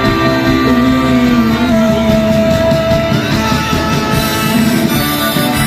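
Rock band playing live through an instrumental passage between sung lines, with long held notes.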